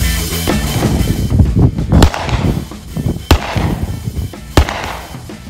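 Background music with a drum beat, which drops away after about a second. Then a Glock 40 10mm pistol fires three single shots about 1.3 seconds apart, each followed by a short echo.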